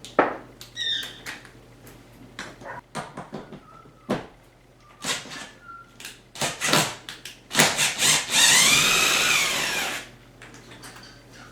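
A few metal clicks and knocks of a tool being set on a bolt, then a power driver runs for about two seconds, its pitch rising and falling, backing out the T50 bolt that joins the seat back to the seat bottom.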